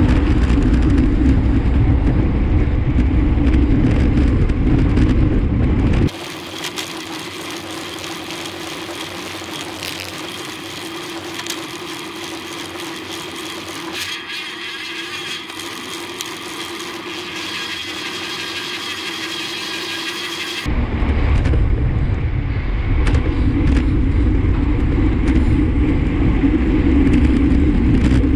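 Wind rumbling on a bike-mounted action camera's microphone while riding at road speed, mixed with passing road traffic. About six seconds in it cuts to a quieter, thinner recording of tyre and road noise. The heavy wind rumble returns some fifteen seconds later.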